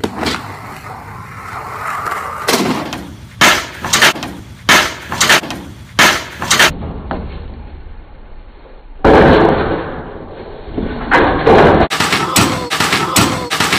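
Skateboard on concrete: wheels rolling and a string of sharp clacks as the board pops and lands, then a rough grinding scrape of about a second near the middle. More clatter follows near the end as the skater falls and the board hits the ground.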